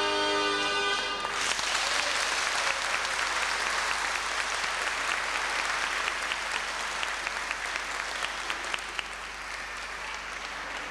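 Zampogna bagpipe and ciaramella reed pipe finish a tune about a second in, then the audience applauds, the clapping slowly dying down toward the end.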